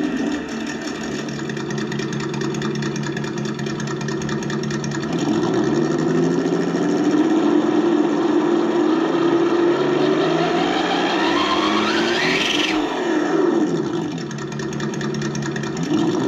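Reely Double Boost sound simulator on an RC crawler playing a simulated engine idling, then revving up as the throttle is worked, with a thin whine climbing steeply and cutting off suddenly past the middle. After that the engine sound falls back, dips briefly, and settles back to idle near the end.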